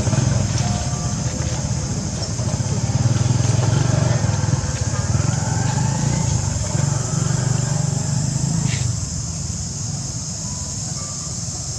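A motor engine running, louder over the first several seconds and easing toward the end, over a steady high-pitched insect drone.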